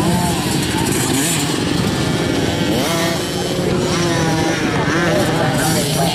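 Several youth mini motocross bikes racing, their small engines revving up and down in overlapping buzzy tones as they ride the jumps.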